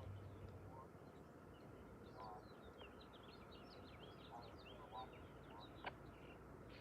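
Faint outdoor quiet with small birds chirping in quick, sweeping notes from about two seconds in, a few short lower bird calls among them, and a single sharp click near the end.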